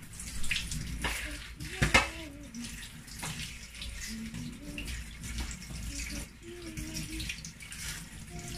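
Kitchen tap running into a stainless steel sink while food is peeled and rinsed by hand with a knife under the stream. There is one sharp knock about two seconds in.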